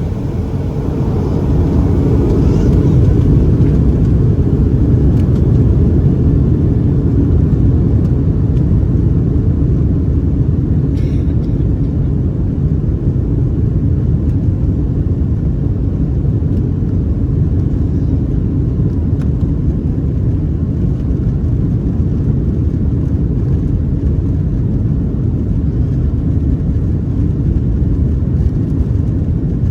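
Steady low cabin rumble of a Boeing 737-800 in flight, its CFM56-7B engines and the airflow heard from inside the cabin over the wing. It swells about two seconds in, then holds steady.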